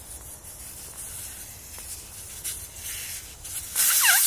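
Compressed air hissing out of a tire's valve stem as the valve core is unscrewed with a four-way valve tool to deflate the tire. The hiss starts suddenly near the end and is loud.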